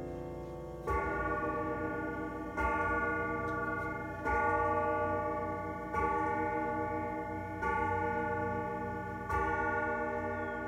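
Howard Miller Presidential grandfather clock striking six o'clock: six strikes about 1.7 seconds apart, each ringing on into the next, with the clock's ticking underneath.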